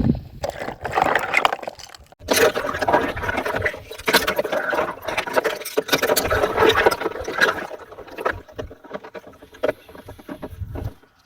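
Water sloshing and splashing as floating plastic rings are stirred about in it, with irregular scraping and knocking. It is busiest in the middle seconds and thins out near the end.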